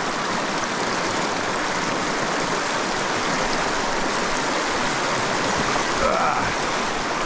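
Creek water running steadily over rocks and riffles, a continuous even rush. A faint short gliding sound rises and falls near the end.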